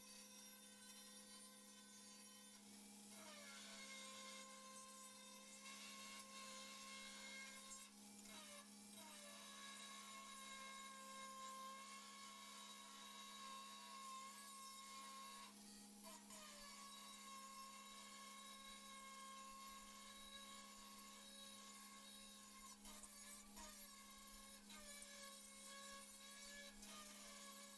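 Electric angle grinder grinding the steel edge of a truck door: a steady whine that breaks off several times and falls in pitch each time the disc bites back into the metal, over a steady electrical hum.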